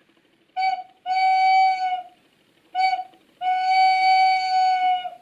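Recorder head joint pressed flat against the palm and blown softly to imitate an owl: a pure, steady hooting tone, played twice as a short note followed by a long held one, each note dipping slightly in pitch as it ends.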